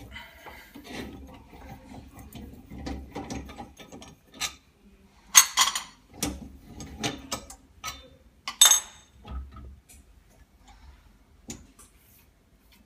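Irregular mechanical clicks, knocks and ratcheting clatter, with two louder sharp clatters about five and a half and eight and a half seconds in, as the autoclave bubble-removal machine's chamber is opened.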